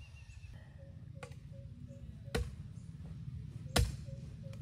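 Garden tool chopping into soil: three sharp knocks about a second and a half apart, growing louder, the last the loudest. A faint steady low rumble and a soft, evenly repeating chirp run underneath.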